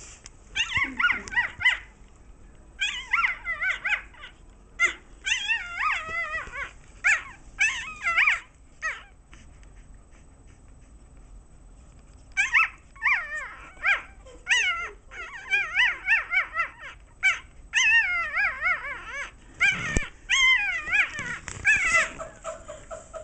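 Newborn puppy squealing and whining in quick, high, wavering cries. The cries come in bursts, with a pause of a few seconds partway through.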